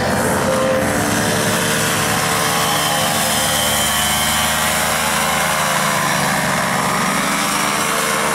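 Paramotor's small engine and propeller running steadily at high power, its pitch wavering slightly midway.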